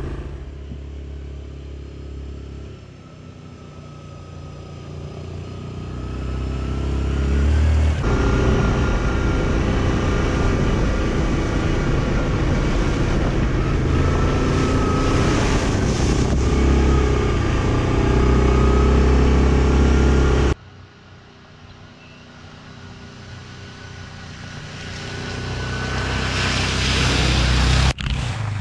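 Yamaha Kodiak ATV's single-cylinder engine running and revving up and down on a trail ride, cut off abruptly twice. Near the end, muddy water sprays over the machine as it runs through a puddle.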